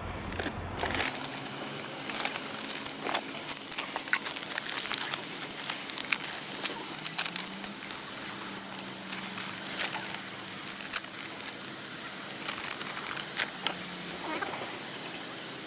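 Plastic bag of fishing bait crinkling and rustling as the powdered bait is opened and mixed by hand, with a run of irregular small crackles.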